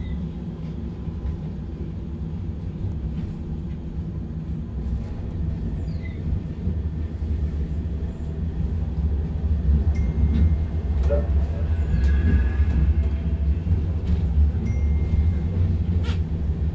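Cabin noise of a Manchester Metrolink tram in motion: a steady low rumble from the wheels and running gear, growing louder about halfway through. A brief sharp click near the end.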